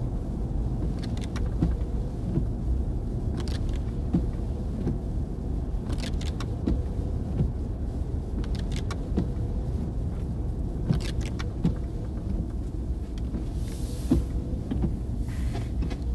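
Steady low rumble of a moving car heard from inside the cabin, with scattered light clicks and rattles and a short hiss about fourteen seconds in.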